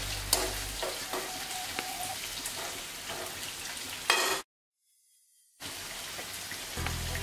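Sliced onions, green chillies and curry leaves sizzling in hot oil in a nonstick frying pan, with a spatula clicking and scraping against the pan as they are stirred. The sound drops out for about a second a little past halfway, then the sizzling resumes.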